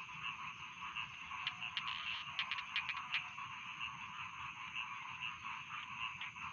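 Chorus of many rice-field frogs calling over one another in dense, repeated short croaks, with a quick flurry of clicking calls about two seconds in.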